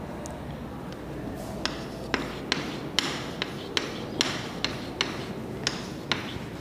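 Chalk on a chalkboard as numerals are written: a run of short, sharp taps, about two a second, starting about one and a half seconds in and stopping shortly before the end.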